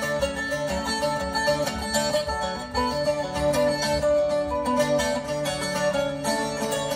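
Solo instrumental on a small plucked string instrument, played as a quick, steady run of picked notes.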